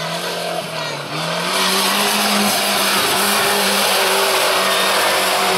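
Off-road race car's engine running hard, its note rising in steps as it drives through mud. A loud rushing noise joins about a second and a half in and holds.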